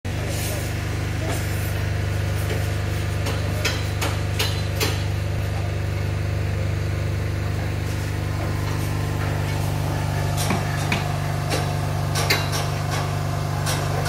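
Construction-site noise: scattered hammer blows and sharp knocks at uneven intervals over a steady low engine drone.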